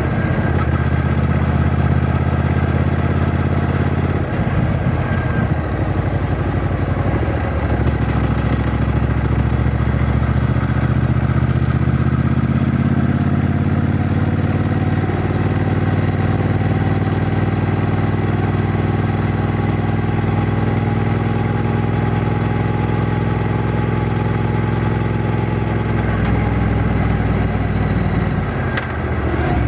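Triumph Bonneville T120's 1200 cc parallel-twin engine running under way, with a continuous engine note. The pitch shifts about in the first several seconds, holds steady through a long middle stretch, and drops briefly near the end, as with a throttle change or gear shift.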